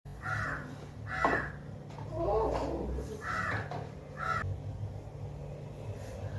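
Crows cawing, four calls in two pairs, over a steady low hum, with a short knock about a second in.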